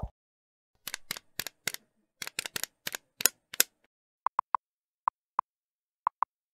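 Video-editing sound effects: a short rising pop at the very start, then about three seconds of sharp, irregular clicks, then short high ticks in small groups as text types onto the screen, like a typewriter effect.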